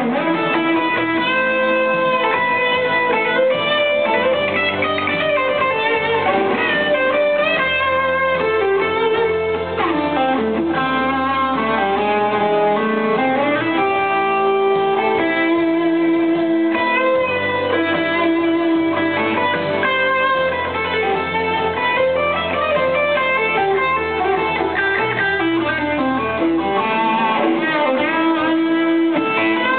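Electric guitar through a Marshall amplifier playing an instrumental blues lead: long held notes and pitch bends sliding up and down, over a steady low accompaniment.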